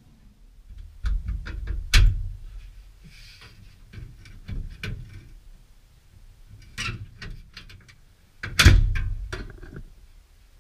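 Scattered metal knocks and clanks as the brace bar is worked free from the VW bus's steel side panel, the two loudest about two seconds in and near the end.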